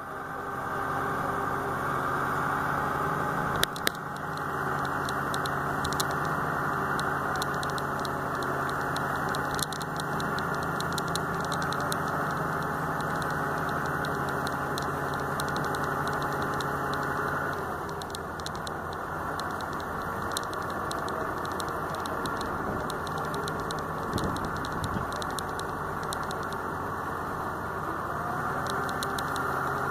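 Truck-mounted crane's diesel engine running steadily while its hydraulic boom is raised. About two-thirds of the way through, the engine note drops a little and turns less even.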